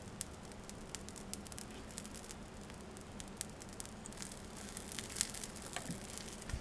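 Coffee with a powdered flavour mix stirred in, crackling faintly: a steady scatter of tiny pops from the cup. Near the end a spoon moves in the cup with a couple of slightly louder clicks.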